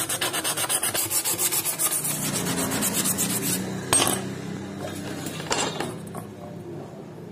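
Folded sandpaper rubbed quickly back and forth by hand along a thin metal strip, several strokes a second, stopping about three and a half seconds in. A sharp tap follows as pieces are handled on the wooden bench, then a few softer knocks.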